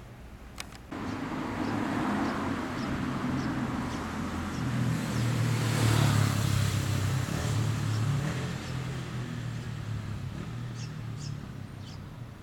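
A motor vehicle passing: a low engine hum and rushing noise that swells to a peak about halfway through and slowly fades away. A sharp click comes just before it.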